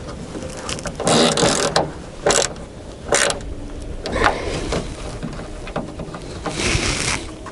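Hard plastic clicking and scraping in a handful of short bursts as a Skoda Rapid trunk-lid stop is pushed back into its mount on the body.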